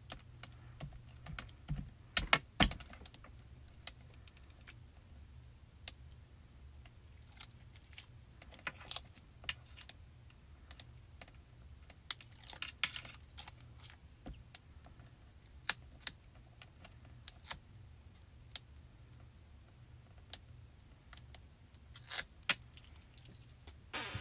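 Irregular small clicks, taps and crinkles of paper handling: red release liners being peeled off strips of foam tape stuck to the back of a die-cut cardstock coral, with a few louder clusters of crackling.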